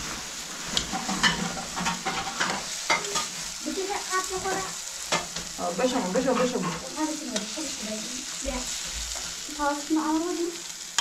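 A steady sizzling hiss with frequent sharp clicks and knocks, like something being stirred or scraped, and wavering pitched sounds over it.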